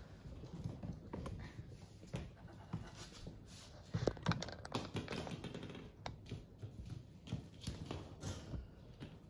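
Light, irregular clicking and tapping of a poodle puppy's nails scrabbling on a hard floor as it plays, with a few louder knocks about four seconds in.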